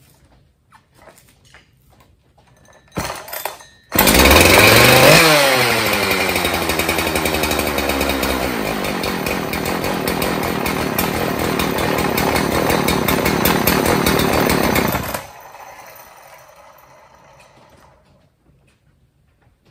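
Husqvarna 372 XP two-stroke chainsaw, freshly rebuilt with a new piston and cylinder, pull-started: one short pull about three seconds in, then it catches on the next and flares to high revs before settling. It runs steadily for about eleven seconds, then drops off sharply and fades out.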